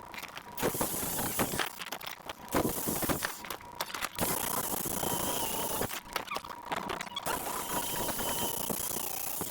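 Power tool with a steady high whine abrading metal, in repeated loud scraping passes broken by short gaps, with a faint squeal now and then.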